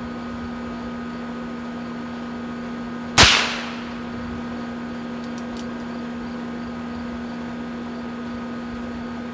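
A single gunshot from a Heritage Rough Rider .22 rimfire revolver, a sharp crack about three seconds in with a short echoing tail. A steady hum continues underneath.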